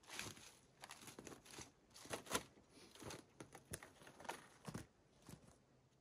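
Faint, irregular crunching footsteps on the thin ice of a frozen pond.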